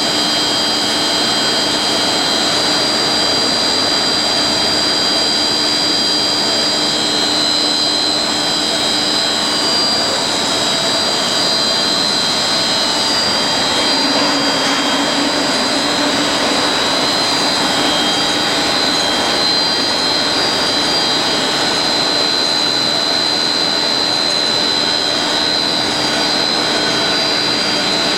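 HDPE blown film extrusion machine running steadily: a continuous rushing hiss with several constant high-pitched whines.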